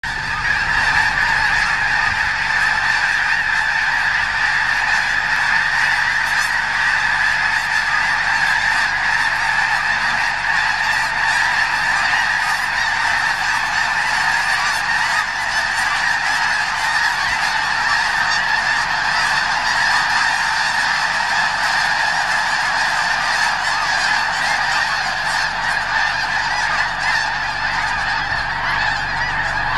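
A huge flock of snow geese calling all at once as it takes flight: a dense, unbroken din of high honking that holds steady throughout.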